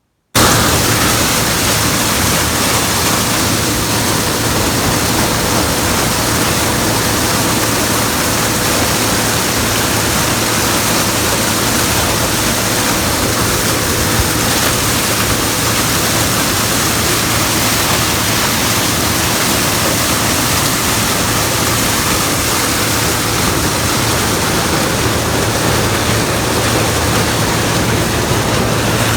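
Gleaner combine running: a loud, steady rush of noise with a low, even hum underneath.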